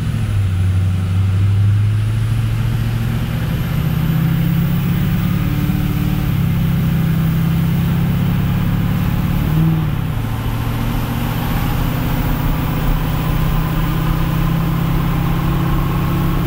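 The LBZ Duramax 6.6 L V8 turbo-diesel of a Chevy Silverado, heard from inside the cab as the truck drives and gathers speed. The engine drones steadily, with a faint high whine rising in pitch near the start and again later. About ten seconds in there is a brief change in the engine note.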